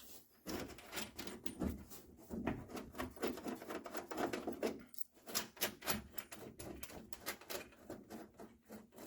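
Irregular small clicks, taps and rattles of metal window-regulator parts being handled and fitted inside a car door.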